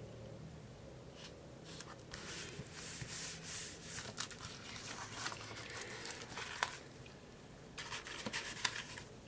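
Printed paper sheets rustling and sliding as they are handled, with a quick run of small taps and clicks near the end.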